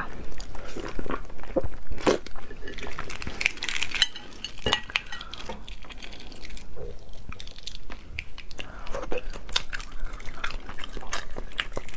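Shell of a cooked fertilized egg (huozhuzi) being cracked and peeled off by hand: an irregular run of small crackles and clicks as shell pieces break away.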